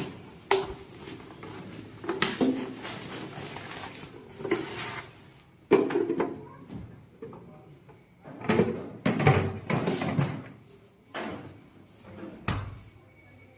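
Refrigerator drawers and doors being opened and closed: a string of plastic clicks, knocks and sliding rattles.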